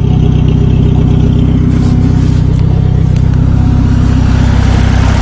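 Volvo car engine idling steadily after a cold start in the snow.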